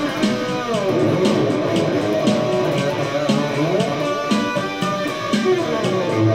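Electric guitar played as a lead line, with pitch bends and slides, over a groove that keeps a steady beat of about two hits a second.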